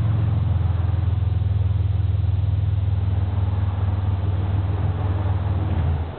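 1994 Plymouth Voyager 3.3L V6 exhaust, through an Aero Turbine AT2525 muffler, a Vibrant bottle resonator and Borla dual tips, running with a steady low drone. The drone falls away suddenly near the end.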